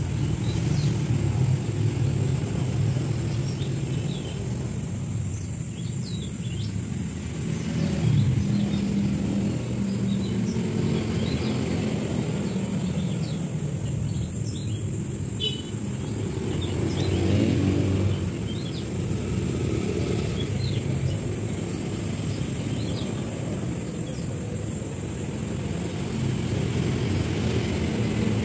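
Outdoor background: a steady low rumble, with a thin steady high-pitched tone and faint scattered bird chirps.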